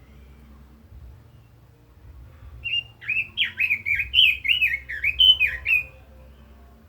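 Red-billed leiothrix singing one fast warbled phrase of about three seconds, quick notes swooping up and down, starting a little over two and a half seconds in.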